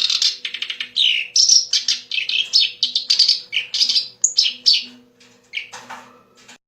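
Kerak basi, a reed warbler, singing a fast, loud, chattering song of varied harsh and whistled notes that fades about five seconds in, gives one last short phrase and stops.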